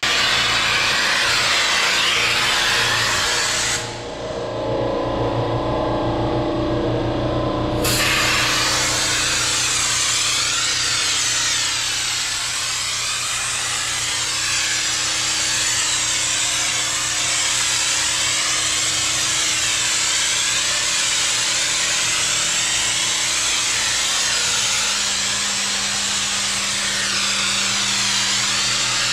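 Compressed-air spray gun with a jug attached, hissing steadily as it blasts cleaning liquid over a jet ski's engine bay. The hiss stops for about four seconds, about four seconds in, then resumes, with a steady low hum underneath throughout.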